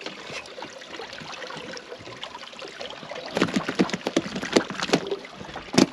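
Water sloshing, then from about halfway in a quick, irregular run of sharp splashes and knocks.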